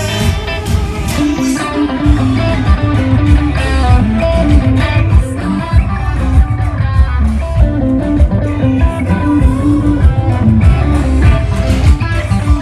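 Live band playing an instrumental passage at a sound check: electric guitar over a moving bass line with a steady beat.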